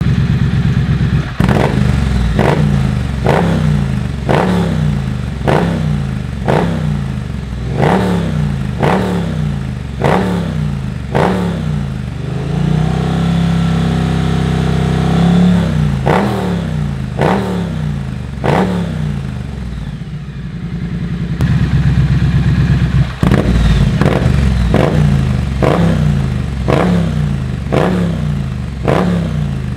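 A 2019 Triumph Street Twin's 900 cc parallel-twin engine is revved in short throttle blips, a little more than one a second, through a de-catted header, a Magnaflow X-pipe and a TEC slip-on silencer. About halfway through, the revs are held steady for a few seconds, then drop briefly toward idle before the blips start again.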